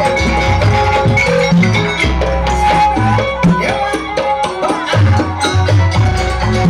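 Live Banyuwangi gandrung music: a traditional ensemble playing, with sustained, bending melody lines over repeated low drum strokes.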